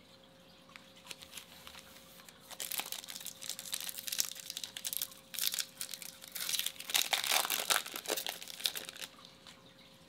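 Foil wrapper of a Topps Chrome baseball card pack being torn open and crinkled by hand. The crackling starts about two and a half seconds in and stops about a second before the end.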